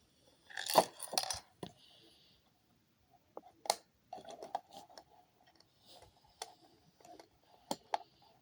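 Alarm clock being handled: a short burst of clinking clatter about half a second in, then scattered irregular clicks, with no steady ticking rhythm.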